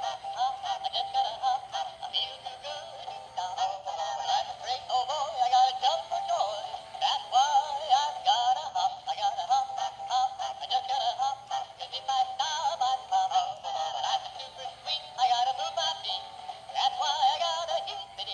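Animated plush singing bunny toy playing its song through its small built-in speaker: a tinny, electronic-sounding sung tune with music, with no bass.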